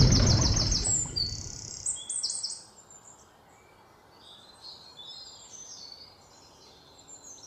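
Songbirds chirping in quick runs of short, high notes. A loud rushing noise fades out under them over the first two and a half seconds.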